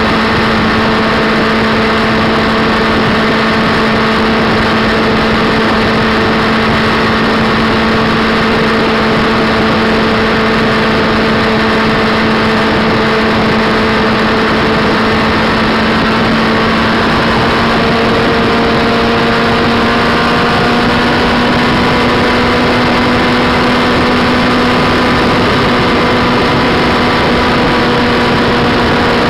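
Motorcycle engine running steadily at motorway cruising speed, a constant hum under loud wind rush. Its pitch creeps slightly higher partway through as it gains speed.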